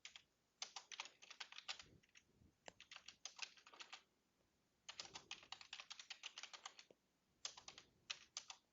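Faint computer keyboard typing in four quick runs of keystrokes with short pauses between them, as an address is typed in.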